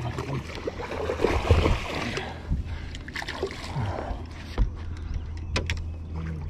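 A hooked largemouth bass splashing and thrashing at the surface beside the boat as it is reeled in, loudest about a second or two in, over a steady low hum, with a few sharp knocks later on.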